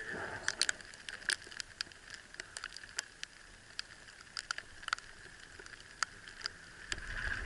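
Small sleet pellets ticking at uneven intervals on clothing and gear close to the microphone, over a faint steady hiss.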